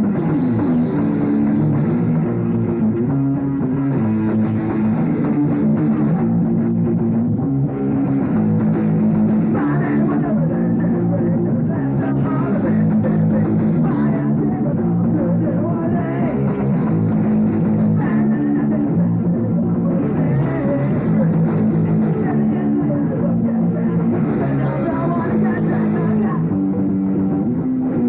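A rock band playing a song live: loud, steady electric guitar and drum kit.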